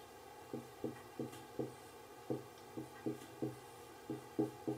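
Whiteboard marker writing Japanese characters on a whiteboard: about a dozen short, separate strokes, roughly three a second.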